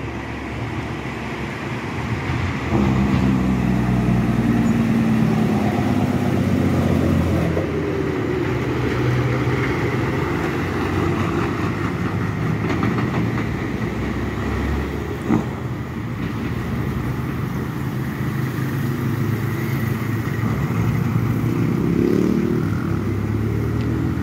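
Heavy dump truck's diesel engine running under load as it pulls past and away up the road, getting louder about three seconds in. A single short sharp click is heard about halfway through.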